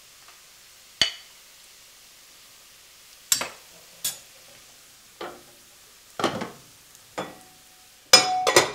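A metal ladle clinking and knocking against a stainless steel soup pot while soup is ladled into a bowl, about six separate knocks. Near the end comes a louder rapid clatter of a pot lid being handled, ringing briefly.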